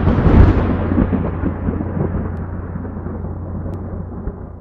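Intro sound effect of a deep, thunder-like rumble that swells once near the start and then fades away over several seconds, growing duller as it dies down.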